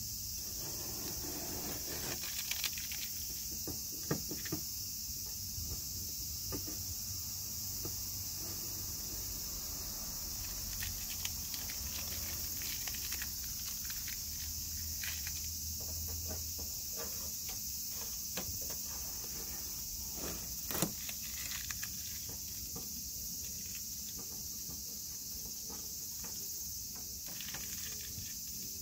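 Masking tape and masking paper being peeled and torn off a car's painted body panel by hand: intermittent crinkling and tearing, with one sharper snap about two-thirds of the way through. A steady high-pitched hiss continues underneath.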